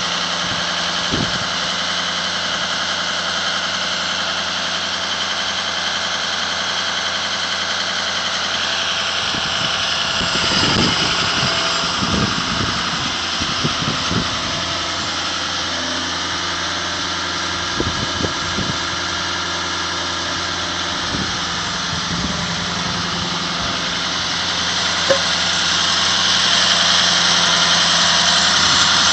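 Fire department brush truck's engine idling steadily, with a few light knocks in the middle and the hum growing a little louder near the end.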